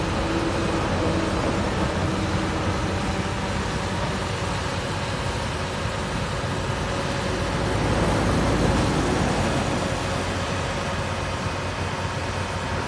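Heavy diesel engine of a Caterpillar excavator running with a steady low hum, swelling louder for a moment about eight seconds in.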